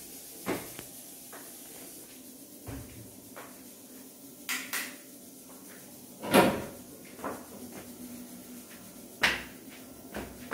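Footsteps on stairs and the clacks of a wooden door being unlatched and opened. The sharpest knock comes about six seconds in, and another near the end.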